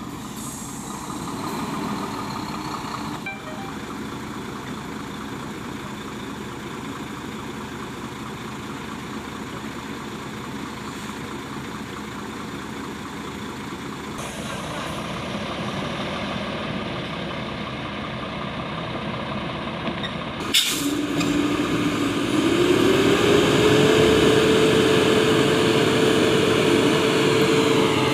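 Heavy diesel truck engines running. About two-thirds of the way in there is a short sharp air-brake hiss, then an engine revs up, holds high revs, and drops back near the end.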